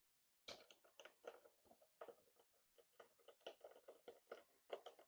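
Faint, irregular small clicks and scrapes of a T25 Torx driver turning a windscreen mounting bolt into its threads by hand.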